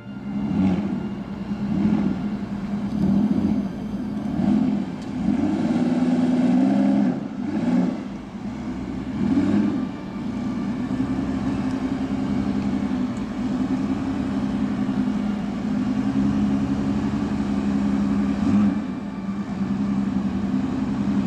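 Aston Martin Rapide's V12 engine running as the car rolls slowly past, the revs rising and falling repeatedly over the first half, then settling into a steady low-speed drone.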